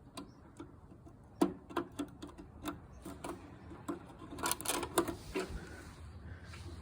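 Irregular light clicks and taps of a wire being handled and pushed back into the push-in wire terminal on the back of a garage door opener.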